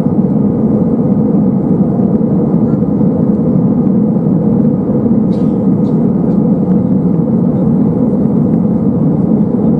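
Steady cabin noise of an Airbus A320-232 in flight, heard from a window seat over the wing: the IAE V2500 turbofan engines and the airflow over the fuselage make an even, low roar that does not change.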